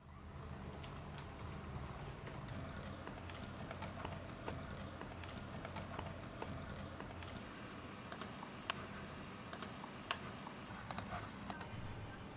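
Typing on a laptop keyboard: irregular light keystrokes, with a few sharper, louder clicks in the second half, over a low steady hum.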